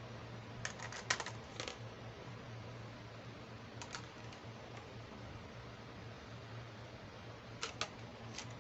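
Small plastic toy pieces clicking and tapping as they are picked up and set down in a plastic tub: a quick cluster of clicks about a second in, a couple near four seconds and a few more near the end, over a faint steady low hum.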